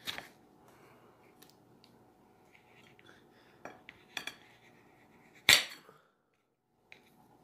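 Knife and plate knocking as a chocolate-coated strawberry truffle bonbon is cut in half: a few separate sharp clicks, the loudest about two thirds of the way through.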